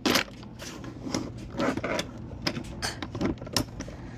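Small hard objects being handled, clicking, knocking and rattling irregularly, with a sharp knock just after the start.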